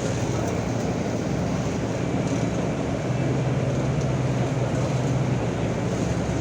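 Steady vehicle rumble with a low engine hum, strengthening a little about halfway through.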